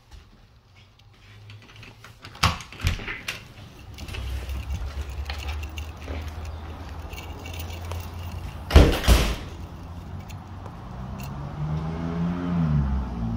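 Metal mesh security screen door being unlatched and opened by its knob: a few sharp clicks of the latch, then a loud bang about nine seconds in. A steady low rumble sets in about four seconds in and lasts to the end.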